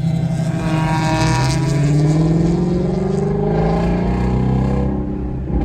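Shelby GT350's V8 engine pulling under acceleration, its pitch rising slowly for a couple of seconds, then holding steady before easing off near the end.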